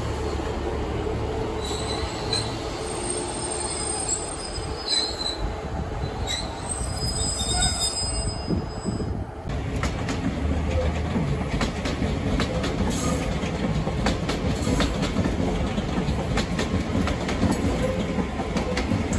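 Passenger trains running past: a train moving alongside the platform with a steady rumble and short, high wheel squeals, then, about halfway through, a multiple-unit train running by with its wheels clicking over rail joints.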